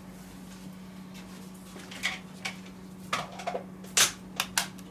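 Laptop RAM modules being handled and pressed into their memory slots: a string of small plastic-and-metal clicks and knocks starting about two seconds in, the loudest near the end as a module is pushed down into place. A steady low hum runs underneath.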